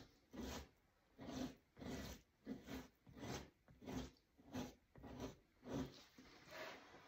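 A knife scraping fat and flesh off a summer beaver pelt stretched over a wooden fleshing beam, in short rasping strokes about three every two seconds.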